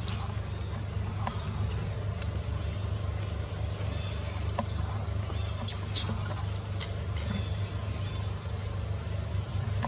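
Two short, sharp, high-pitched animal squeaks close together about six seconds in, with a fainter third just after, over a steady low rumble.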